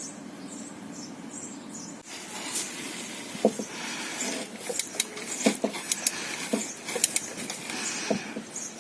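Wrench and socket clicking and knocking on metal as an alternator mounting bolt is worked loose in a car engine bay: irregular sharp clicks and knocks that begin about three seconds in.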